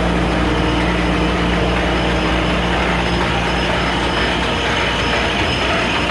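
Niles ZSTZ spur and helical gear tooth grinder running: a steady machine hum and whir with a constant low drone, holding level throughout.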